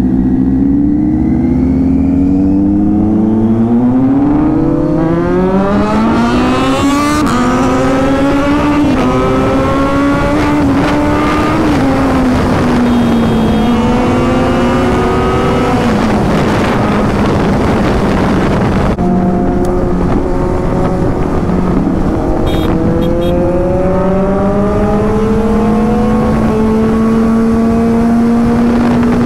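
Kawasaki Z900's inline-four engine accelerating hard through the gears. Its pitch climbs steeply for the first several seconds, drops back in steps at the upshifts, rises again and then holds steady at high highway speed.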